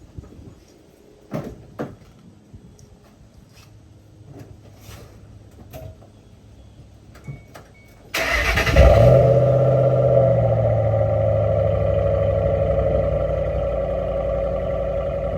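A 2006 Ford Mustang GT's 4.6-litre V8 cold-starting. After several seconds of faint clicks, it catches about eight seconds in and flares up in revs. It then settles into a steady high cold idle that slowly eases down.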